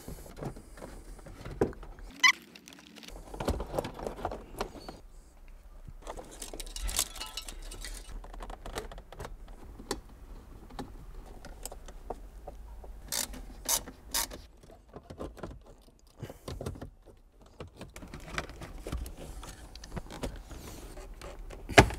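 Scattered clicks, knocks and plastic rattles of car interior trim being fitted: a center console set into place and wiring connectors clicked together, with a few sharper snaps partway through.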